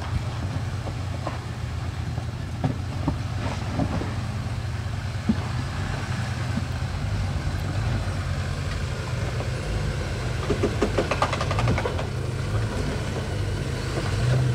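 Off-road vehicle engine running steadily at low speed while crawling over rocky trail, with scattered knocks and a quick rattling clatter about ten seconds in.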